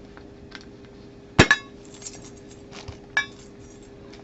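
Sealed Funko Soda can being worked open by hand: a sharp metallic clink with a short ring about a second and a half in, a second smaller clink near the end, and a few light taps between.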